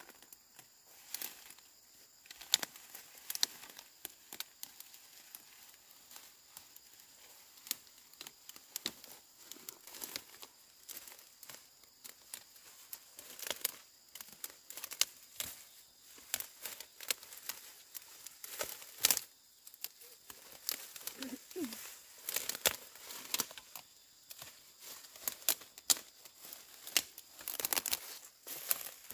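Irregular crinkling and crackling, with sharp clicks and rustles coming at uneven intervals, like something dry being handled or crumpled.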